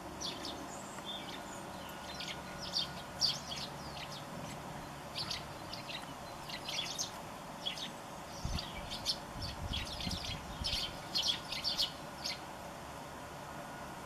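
A flock of Eurasian tree sparrows chirping: many short, high chirps, scattered at first, then coming thick and fast through the middle, before stopping shortly before the end.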